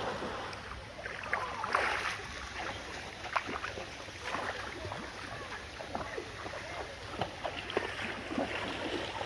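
Pool water splashing and lapping, a steady wash with many small irregular splashes.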